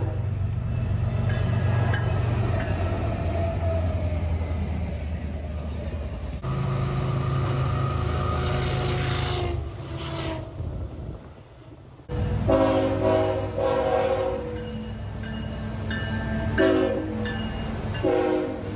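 Diesel freight locomotives passing, with a low engine rumble and rail noise. In the later part a multi-chime locomotive air horn sounds several blasts of varied length. The sound changes abruptly between shots.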